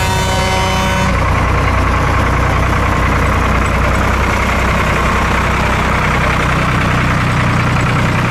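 Large vehicle engine idling steadily with a low, even hum. A held high tone cuts off about a second in.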